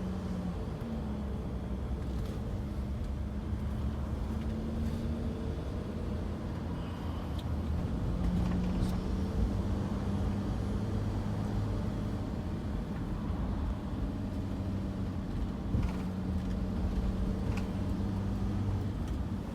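Motor vehicle running with road or traffic noise: a steady low hum whose engine note steps up in pitch about a second in and back down about five seconds in.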